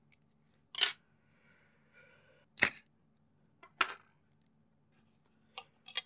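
Sharp plastic clicks and taps as a small SSD's plastic frame and its mSATA card are handled and fitted into a dual mSATA adapter board: three loud clicks spread over the first four seconds with light rustling between, then two faint ticks near the end.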